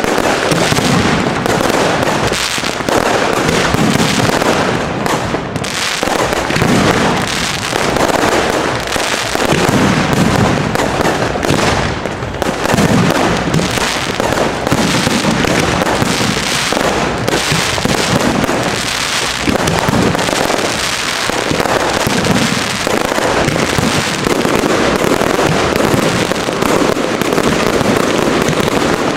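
Aerial fireworks shells launching and bursting in a rapid barrage, the bangs following one another with no real break.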